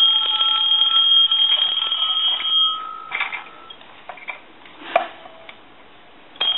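Mechanical telephone bell, newly fitted in a Conairphone Metropolis model 2504, ringing on a ring test: it rings for about three seconds, stops and dies away, then starts ringing again near the end. The ringing shows that the phone's no-ring fault is cured.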